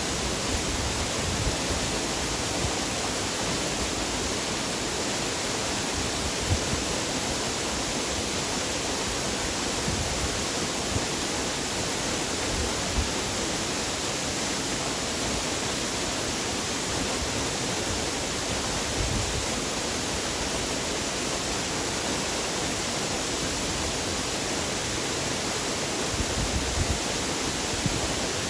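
Waterfall: a steady rush of falling water, with a few brief low rumbles underneath.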